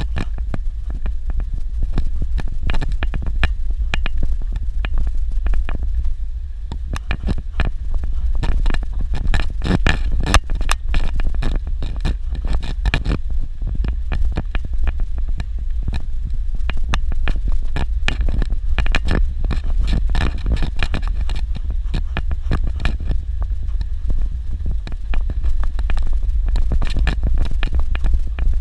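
Suzuki Jimny driving over a dirt road: a steady low engine and road rumble with frequent knocks, rattles and scrapes from bumps and gravel.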